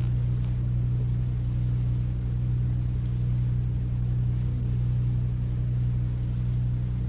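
Steady low electrical mains hum with recording hiss, in a gap with no speech.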